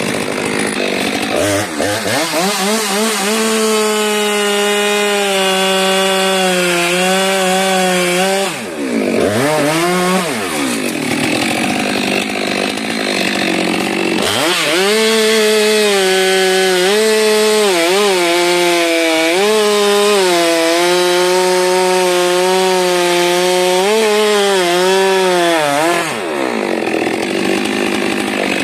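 Stihl chainsaw cutting through a frangipani trunk at high revs, the engine pitch wavering and dipping as the chain loads up in the wood. It drops off the throttle about eight seconds in, cuts again at full revs from about fourteen seconds, and eases back near the end.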